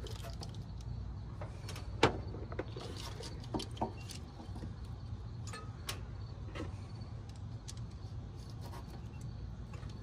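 A few scattered light clicks and knocks of battery cable terminals and hardware being handled, the sharpest about two seconds in, over a steady low rumble.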